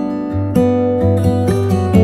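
Background music: acoustic guitar strummed in chords.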